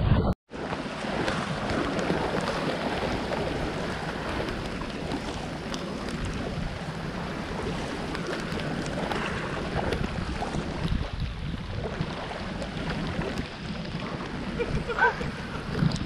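Steady noise of heavy rain and wind on the microphone, mixed with the sea washing against the breakwater rocks.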